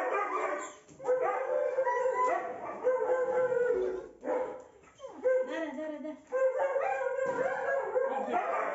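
German Shepherd whining and howling in excited greeting: a string of long, drawn-out high whines, one after another with short breaks.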